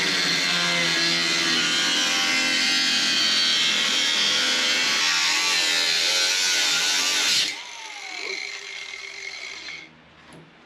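DeWalt cordless angle grinder cutting through car-body sheet metal with a steady, loud whine and screech. About seven and a half seconds in it comes off the metal and the motor winds down, its pitch falling, until it stops near the end.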